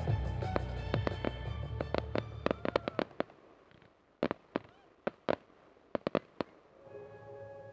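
Fireworks going off over a music soundtrack: a dense run of bangs and crackles while the music fades out over the first three seconds, then a scattering of single sharp reports. Soft music begins again near the end.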